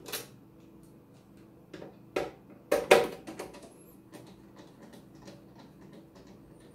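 Screwdriver work on a DVD player's casing: a few sharp clicks and knocks as the last screws are worked out and handled, the loudest about three seconds in, with faint light ticking between them.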